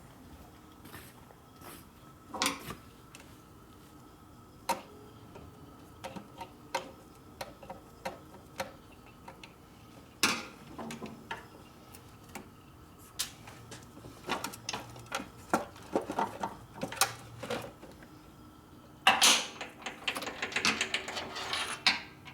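Scattered clicks and knocks of tools and parts being handled, growing busier in the second half, with a burst of rustling clatter near the end.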